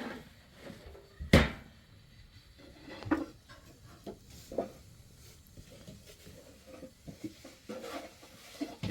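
A series of short knocks and clunks at irregular intervals, the loudest about a second and a half in.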